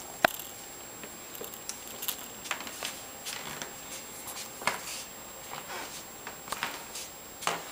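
A run of short clicks and rustles, scattered irregularly, the sharpest and loudest a click about a quarter of a second in.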